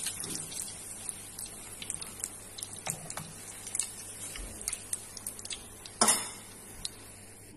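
Hot oil sizzling in a frying pan as fried kubba are lifted out with a metal slotted skimmer, with scattered small clinks and scrapes of the skimmer against the pan. The sizzle fades away, and there is one louder clank about six seconds in.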